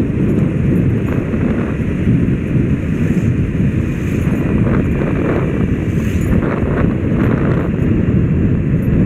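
Wind rumbling on the microphone of a moving motorcycle, mixed with the motorcycle's running engine and road noise, steady throughout.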